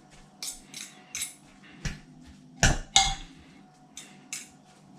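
Two metal forks clinking and scraping against the pot in a string of irregular taps while shredded pulled pork is mixed, the loudest two knocks a little past halfway.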